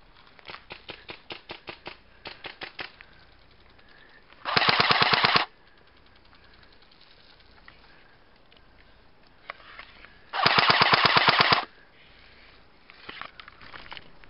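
Airsoft gun firing two close full-auto bursts of about a second each, roughly six seconds apart, the second slightly longer. Fainter rapid shots come in the first few seconds.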